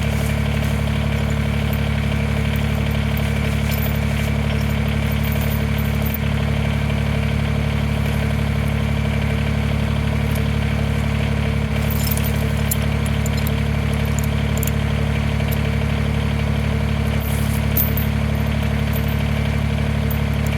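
Tractor engine idling steadily, with a few light clinks about halfway through and again near the end.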